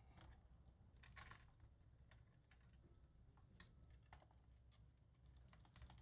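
Near silence, with a few faint, short clicks as electrical wires and a hand wire-stripping tool are handled.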